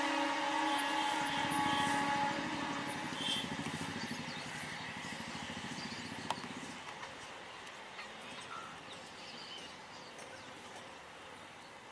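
Electric local train's horn holding a steady tone that stops about two seconds in, followed by the rumble of a train that slowly fades away.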